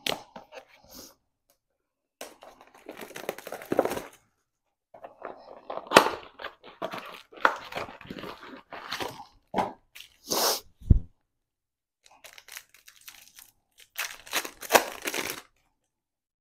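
Cardboard Panini Absolute football-card blaster box being torn open by hand and its foil card packs pulled out and ripped open, in several spells of tearing, crinkling and rustling. A sharp knock comes about eleven seconds in.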